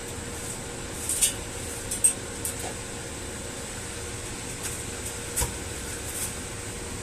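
Argon TIG welding on a cast alloy wheel: a steady hissing hum with a faint constant tone, broken by a few short sharp clicks.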